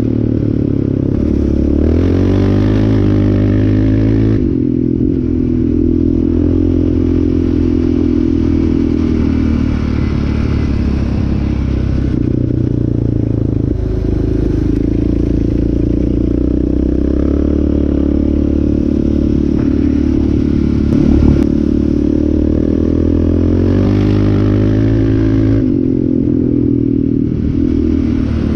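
Yamaha Raptor 700R ATV's single-cylinder four-stroke engine running while riding, its pitch rising and falling again and again with throttle and gear changes, with some clatter from the quad over the dirt.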